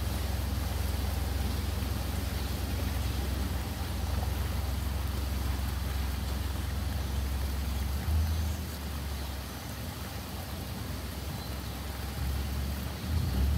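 Thunder rumbling low and long, easing off past the middle and swelling again near the end, over a steady hiss of rain.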